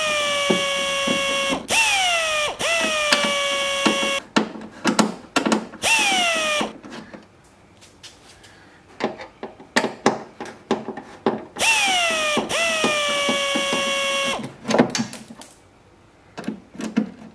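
Small electric screwdriver motor whirring in four runs, the longest lasting a few seconds. Each run starts with a quick swoop in pitch and settles to a steady whine as it backs out the screws holding a car door speaker. Sharp clicks and knocks of the screws and tool come between the runs.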